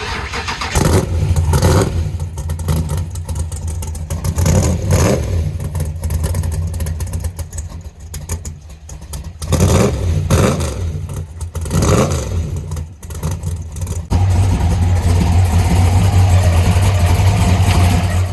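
An old car engine being revved: several loud surges of revs, then held at high revs for the last few seconds.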